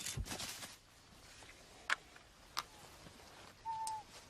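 A radio-fired bird trap springing: a sharp snap followed by a brief rustling scuffle, then a couple of faint clicks. Near the end, a short whistled bird call, slightly falling in pitch.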